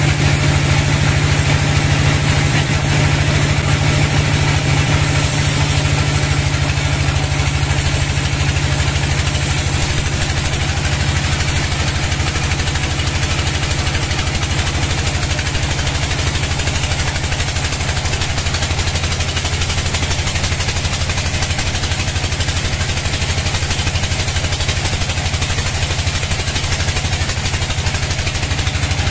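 Large sawmill log bandsaw running and sawing lengthwise through a hardwood log: a loud, steady machine drone with a strong low hum and a constant rasp of the blade in the wood.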